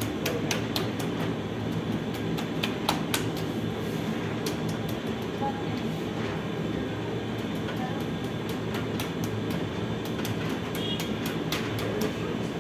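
Steady low mechanical hum and rumble of bakery oven machinery, with irregular sharp taps as the baker presses and dimples barbari dough with his fingertips on a wooden peel.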